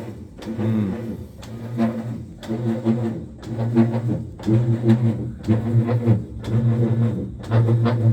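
Maytag top-load washing machine droning in an even on-off rhythm, about three pulses every two seconds, as it runs the agitate cycle while hardly moving the washing. A technician put it down to stripped agitator and wash plate teeth and a bad belt and pulleys.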